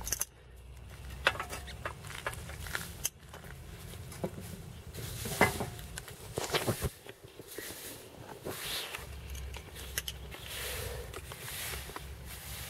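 Irregular small clicks, knocks and rattles of hands handling the metal parts of a homemade cut-off saw, such as its small vise, with the motor not running.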